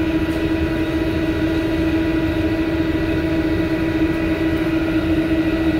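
Steady hum of commercial kitchen machinery, fans and motors running, with one steady droning tone over a constant rushing noise.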